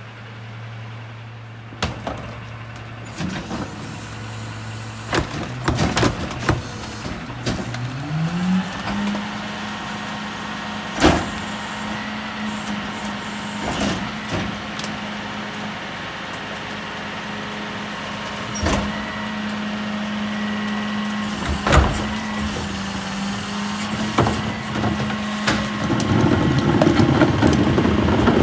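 McNeilus rear-loader garbage truck's engine rises from idle to a higher steady rev about eight seconds in as the hydraulics work. Repeated sharp clanks and bangs come from the cart tipper dumping a trash cart into the hopper, and a rougher, louder rush of the packing mechanism builds near the end.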